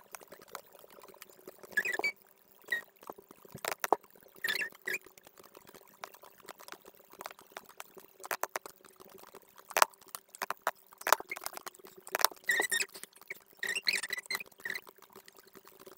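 Computer mouse and keyboard clicks, irregular and sometimes in quick runs, over a faint steady hum.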